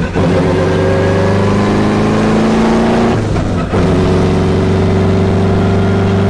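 Car engine accelerating hard under load, its pitch climbing steadily. Gear shifts near the start and about three and a half seconds in briefly cut the sound, and it picks up again at a lower pitch.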